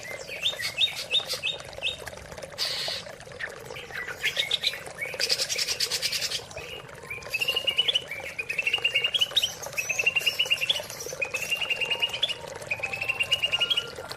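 Greater green leafbird (cucak ijo) singing: quick chirped notes at first, a few harsher notes, then a series of rapid, rising trilled phrases, each about a second long, over a faint steady natural background.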